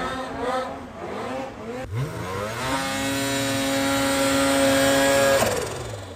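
Snowmobile engine under throttle. Its pitch wavers for the first couple of seconds, then climbs and holds steady at high revs for about three seconds before falling off near the end as the throttle is released.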